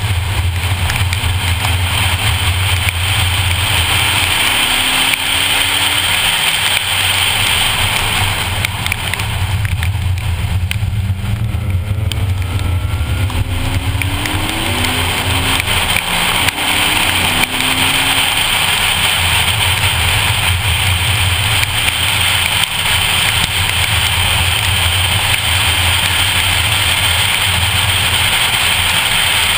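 2014 Ford Focus ST's turbocharged 2.0-litre four-cylinder under way on a wet race track, heard from inside the cabin: steady engine drone with a constant hiss of tyres on the wet surface. The engine note rises and falls in pitch through the middle of the stretch.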